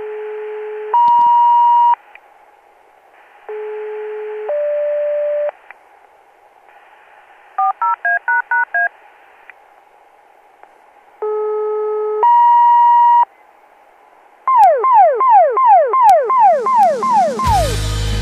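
Fire-dispatch radio paging tones heard through scanner hiss. There are three two-tone alerts, each a low steady tone of about a second followed by a higher one, with a quick run of six short beeps between the first two. They are followed by a string of about nine falling chirp tones. Rock music starts near the end.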